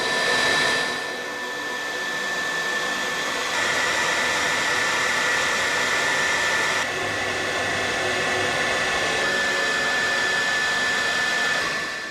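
Steady whirring rush of air from a small motor spinning a fan or propeller, with a steady high-pitched whine on top. The sound changes abruptly a few times, as if cut, and fades out at the end.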